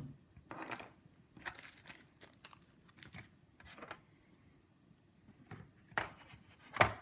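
Packaging and parts being handled: intermittent crinkling and rustling with scattered clicks, and a sharper click shortly before the end.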